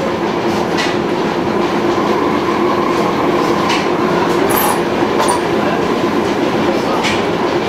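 Old stationary engines running, a steady mechanical clatter with a held hum and a fainter higher tone, and a few sharp ticks scattered through it.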